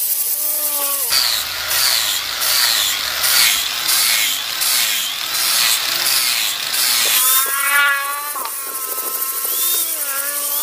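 Electric angle grinder with a sanding disc grinding a brass three-blade boat propeller blade, taking metal off to balance the propeller. About a second of free-running whine, then a harsh grinding hiss that pulses as the disc is worked against the blade, then the motor's whine rising again as the disc comes off the metal, with one more short grind before it settles to a whine.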